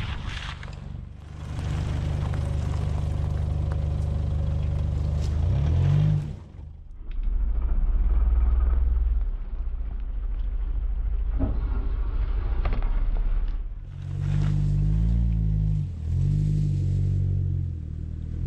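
A 4WD's engine running under way on an unsealed track, with tyre and road noise. The engine note rises and cuts off about six seconds in, picks up again, then swings up and down a few times near the end.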